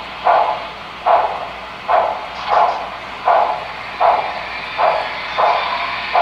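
Onboard sound decoder of a Broadway Limited HO-scale Texas & Pacific steam locomotive, its speaker playing steady, evenly spaced exhaust chuffs at a little over one a second, as the model works slowly along with its train.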